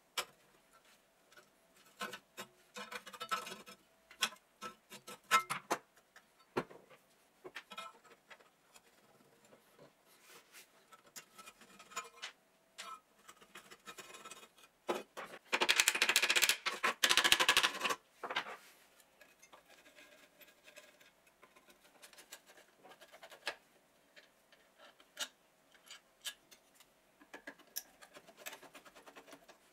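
Hand tools working on the rusty steel parts of an old Hitachi H-14 cut-off saw during disassembly: scattered metal clicks, clinks and scrapes from pliers and a screwdriver. A louder rasping stretch of about two seconds comes midway.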